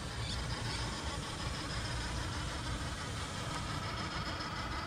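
Redcat Gen8 Scout II RC crawler's Hobbywing brushless motor and drivetrain whirring steadily as the truck crawls slowly up a wooden plank.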